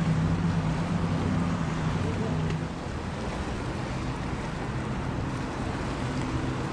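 Steady low engine hum of passing boats over wind on the microphone and the wash of water. About three seconds in, the level dips slightly and the hum changes pitch.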